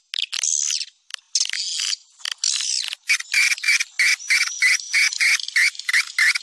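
Swiftlet call recording (suara panggil walet), the lure sound used to draw swiftlets into nesting houses: high-pitched twittering chirps, dense and irregular at first, then from about halfway a fast, regular series of short chirps, about three a second.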